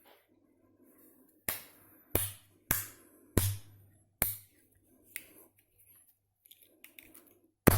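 Sharp metallic clicks, about six at uneven intervals over the first five seconds, from the tools of a Victorinox RangerGrip 74 multitool pocket knife being handled and snapped shut, with faint handling rustle between them.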